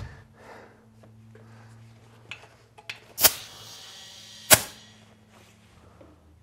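Air chuck on a compressor hose clicking onto a tubeless motorcycle tire's valve stem, air hissing into the tire for about a second, then another sharp click, as the tire is aired up to seat the bead. A few small clicks of handling come before it.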